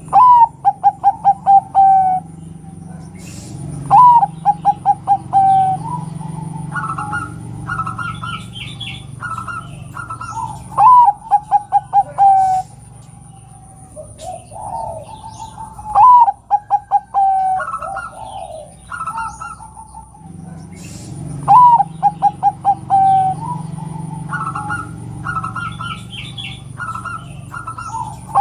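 Zebra dove (perkutut) cooing: five phrases, each a higher opening note followed by a quick staccato run of about seven short notes, repeated every four to seven seconds. Shorter, higher chirps from other birds fall between the phrases.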